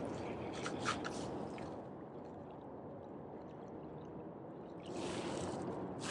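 Small waves washing and gurgling against jetty rocks, with a louder wash about five seconds in.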